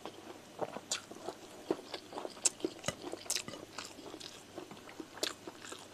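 Mouth noises of a man chewing rice and curry, with irregular wet smacks and sharp clicks, close to the microphone.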